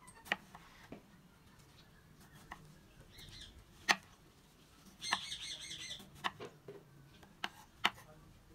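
Kitchen knife slicing through a tomato, the blade knocking sharply on the cutting board about eight times, the loudest knock a little before the middle. A bird calls twice with a short, high chattering call, briefly a little after three seconds and for about a second a little after five.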